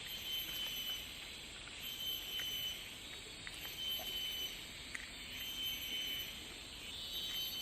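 Insects buzzing in a steady high drone, with a high tone that swells in and out about every second and a half.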